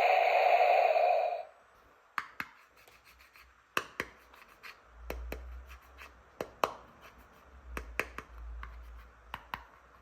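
A loud electronic tone cuts off about a second and a half in. Then hands handle plastic toy pieces, making about a dozen sharp clicks with light rubbing and scratching between them.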